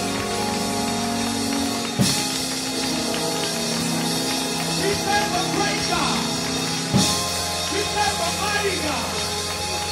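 Live gospel choir and band: held organ and keyboard chords over a drum kit, with two loud drum hits about two seconds in and again about seven seconds in.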